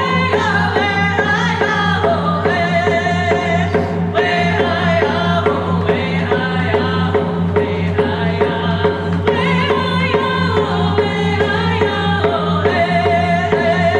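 Two women singing a Native American grand entry song together, each beating a single-headed rawhide hand drum with a beater in a steady beat under the voices.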